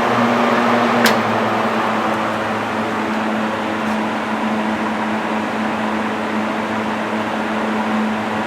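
Vintage Zayre 20-inch seven-blade box fan running on medium speed in exhaust mode: a steady rush of air over an even motor hum. A single click about a second in, and the hum settles slightly lower a moment later as the fan comes down to medium.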